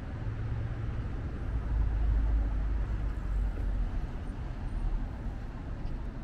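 Low, steady rumble of passing vehicles in city traffic, swelling about two seconds in and then easing off.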